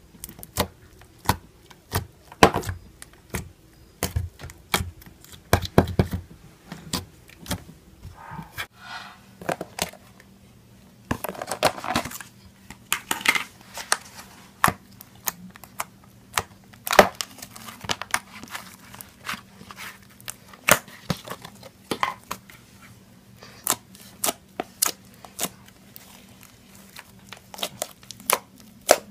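Glitter slime being squeezed, stretched and poked by hand, making irregular sharp pops, clicks and wet crackling squelches.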